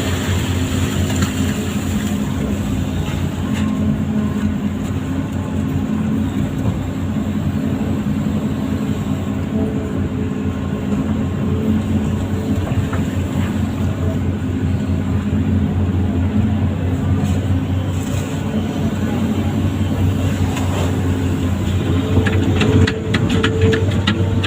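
An amphibious excavator's diesel engine runs steadily. A quick run of clicks comes near the end.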